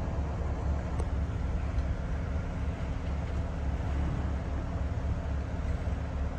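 Off-road Jeep's engine running at low speed as it crawls over a rocky trail, a steady low rumble.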